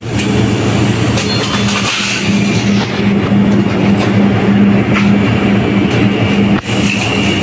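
Steady low hum and noise of a convenience store's machinery, such as drink chillers and air conditioning, with a brief knock near the end.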